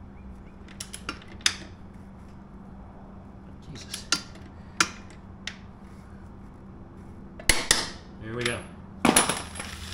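Metal hand tools, wrenches and sockets, clinking and clattering as they are picked up, handled and set down on the floor, in a string of separate knocks with the loudest near the end.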